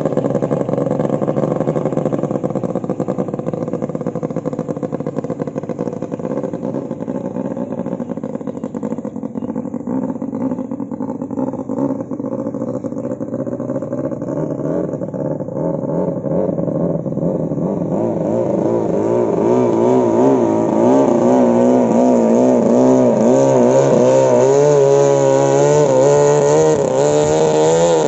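Long-tail boat engines running flat out on the river. One boat's engine dies away as it moves off, then from about two-thirds of the way in another grows louder as it comes closer, its pitch wavering quickly up and down.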